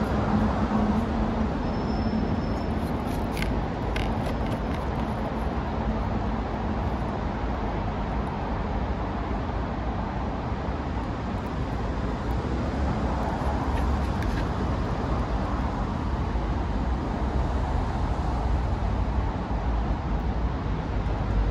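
Steady outdoor hum of distant road traffic, with a few faint clicks.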